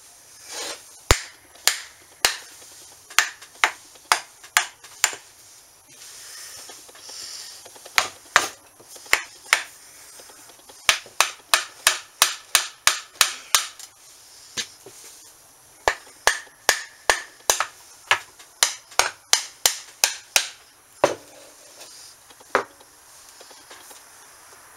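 Hammer knocking repeatedly on the cast case of a Peerless MST transaxle: sharp single knocks in runs of several strikes, about two to three a second, with short pauses between runs. The blows are meant to break the bolted case halves apart, which are stuck and have not popped open.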